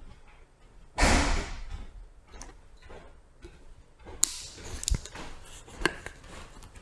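Hand tool handling on a wooden workbench: a bump and rustle about a second in, then a few sharp separate clicks of small wire cutters snipping.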